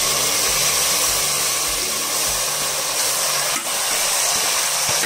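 Marinated mutton sizzling loudly and steadily as it hits hot mustard oil and browned onions in an aluminium pot, with a light tap partway through.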